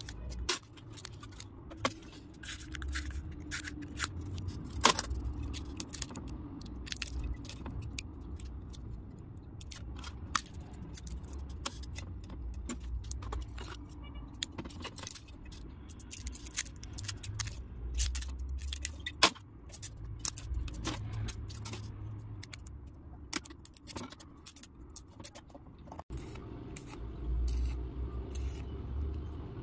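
Enamelled copper magnet wire being handled and pressed into the slots of an electric motor stator during rewinding: many small, irregular metallic clicks, jingles and scrapes.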